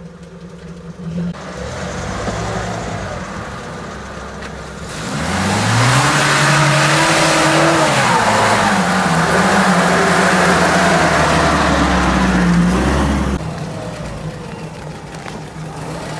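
UAZ-469 off-roader's engine revving hard while driving through mud: the pitch climbs steeply about five seconds in, holds at high revs for about eight seconds, then drops back to a lower run.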